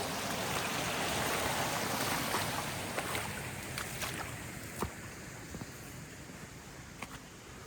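Rushing water from a swollen, overflowing woodland stream: a steady rush that fades away over a few seconds, with a few scattered sharp clicks through it.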